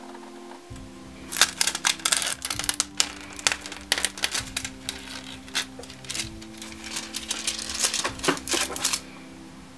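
Irregular crackling clicks from a craft knife cutting the clear plastic cover film of a diamond painting canvas along a steel ruler, with the film lifting away. The clicks start about a second in and stop near the end, over background music with steady tones.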